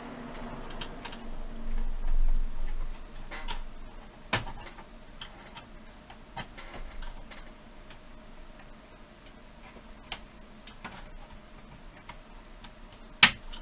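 Scattered small clicks and taps of a screwdriver and plastic casing as the front panel of a VHS/DVD recorder is probed for its clips, with a low bump about two seconds in and a sharp click near the end.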